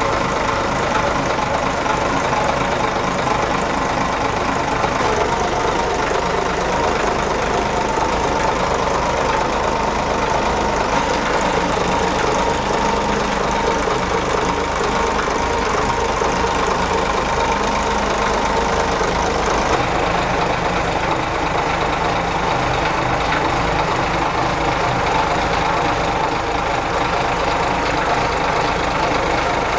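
Yanmar 6CA-ET six-cylinder marine diesel idling steadily, heard up close in the engine compartment.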